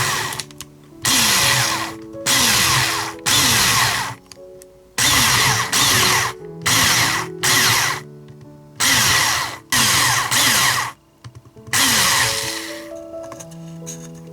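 Power drill run in about a dozen short bursts of under a second each, its motor pitch sliding at each trigger pull, over background music.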